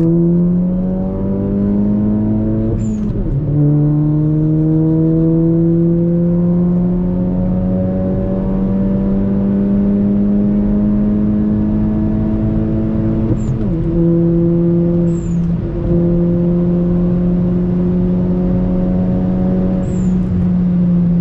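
Turbocharged VW Golf engine pulling under acceleration, its pitch rising for about three seconds, dropping at a gear change, then holding a steady drone that climbs slowly, with brief dips about 13 and 15 seconds in. Short high chirps come at the gear changes.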